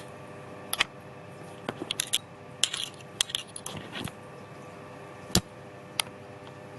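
Irregular sharp clicks and light taps, bunched in the first four seconds, then two more spaced apart, the first of those a heavier knock. A faint steady hum runs underneath.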